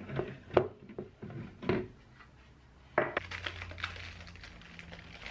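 Light metallic clicks and knocks as the thin sheet-metal lid of a security-camera recorder's case is lifted off and handled, a few sharp ones in the first two seconds. After that comes a low steady hum with soft handling noise.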